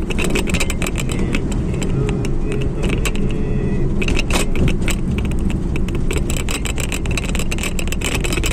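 Steady rumble of a car's engine and tyres heard from inside the cabin while driving, with frequent small clicks and rattles.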